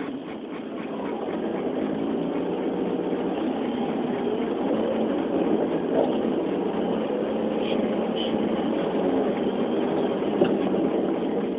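Car engine running steadily as the car creeps along in slow traffic, heard from inside the cabin, with a few light ticks.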